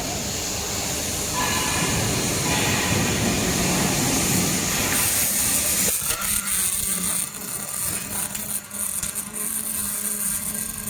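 Robotic welding arc: a steady hiss for about the first six seconds, then a crackling, sputtering arc over a steady low hum.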